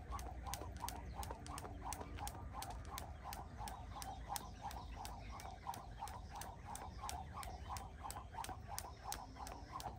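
A skipping rope slapping the ground in a quick, even rhythm, about four slaps a second, without a break.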